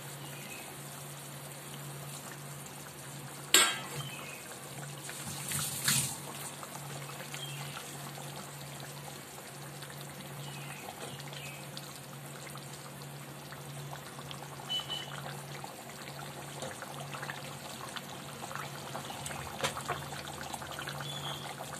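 Yogurt curry with fried rohu fish simmering in an aluminium kadai, a steady bubbling and sizzling. A spatula knocks sharply against the pan about three and a half seconds in, with a short louder clatter near six seconds.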